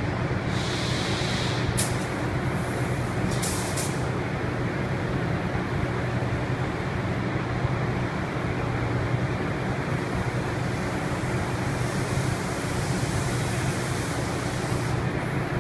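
Steady drone of spray-booth ventilation fans, with short hisses of compressed air from a paint spray gun near the start and again later on.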